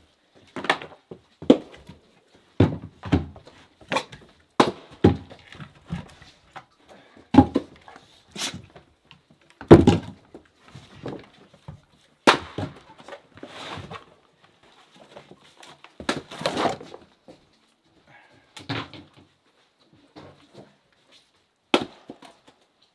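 Split firewood being dropped and stacked on a wooden deck: a run of irregular wooden knocks and thunks, close together at first and sparser after about twelve seconds.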